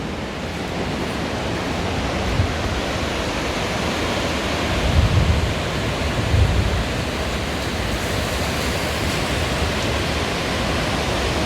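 Low rumbles of distant thunder from a storm out at sea, swelling twice about five and six and a half seconds in, over a steady rushing noise.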